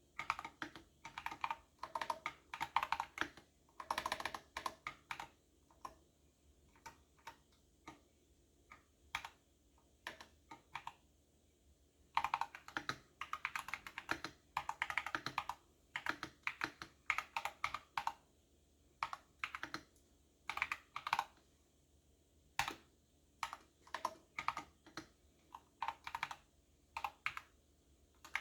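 Typing on a computer keyboard: quick runs of key clicks broken by short pauses, with the busiest runs near the start and about halfway through.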